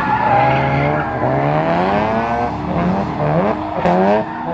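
A drift car's engine revs up and down repeatedly, with surges about a second in, around three seconds in and again near four seconds, over tyre squeal as the car slides sideways.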